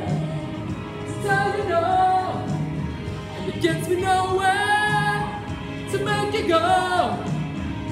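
Singing over backing music: three sung phrases with sliding pitches and long, wavering held notes.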